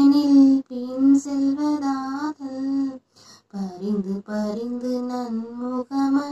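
A woman singing a Tamil verse solo and unaccompanied, to a film-song style tune. She holds and bends each note, with short breaks between phrases.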